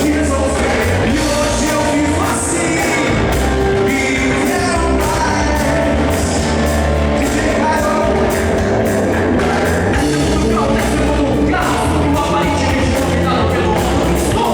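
Live rock-style praise band playing, with drums, bass and singing.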